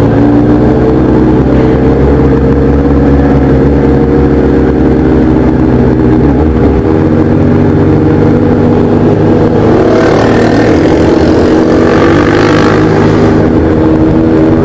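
Kawasaki Z1000 inline-four motorcycle engine running steadily at low revs while riding slowly, heard from on the bike. About ten seconds in, the pitch rises a little and a rush of hiss joins it for a few seconds.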